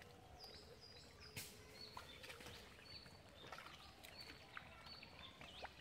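Faint outdoor ambience with small birds chirping, short high notes repeated over and over, and a few soft clicks, one sharper about a second and a half in.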